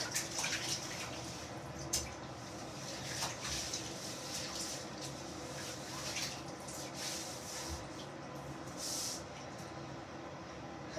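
Water splashing and dripping in a bathtub, in short swishes every second or two, with a sharp knock about two seconds in.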